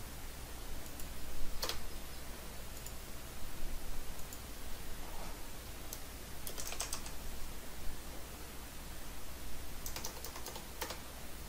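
Computer keyboard keys tapped in a few short runs: a single tap near two seconds in, a quick cluster around seven seconds, and another around ten seconds, over a faint steady low hum.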